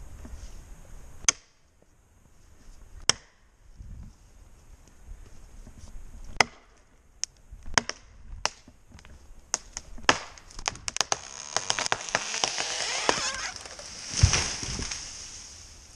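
A felled tree's hinge wood cracking as the tree goes over: single sharp cracks every second or two, then a quick run of cracks, then a swelling rush of branches ending in a heavy thump as the trunk hits the ground about 14 seconds in.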